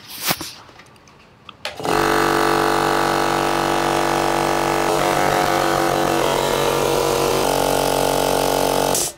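OMA single-phase 220 V piston air compressor starting up about two seconds in and running steadily, its tone changing slightly partway through, then stopping abruptly near the end. This is a retest of a compressor that will not build past about 5 bar.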